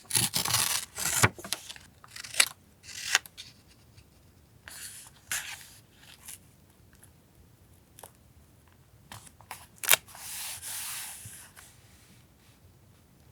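Paper being handled for collage journaling: a run of loud rustling and rubbing in the first second and a half, then scattered sharp clicks and taps, and a longer soft paper rustle after about ten seconds.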